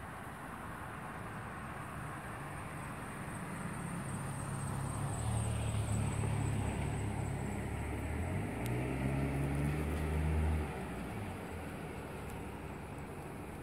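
A motor vehicle's engine going by, growing louder over the first few seconds with a low hum. Its pitch steps up about eight seconds in, and the sound drops away suddenly a little before the end.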